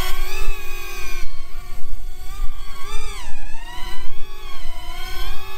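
Happymodel Mantis 85 micro FPV quadcopter in flight: its brushless motors and propellers whine, the pitch sliding up and down as the throttle changes and dipping sharply about three seconds in. Wind rumbles on the microphone underneath.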